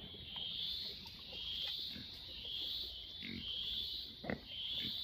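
Pigs grunting three times in the second half, the last grunt the loudest, over a high buzz that swells and fades about once a second.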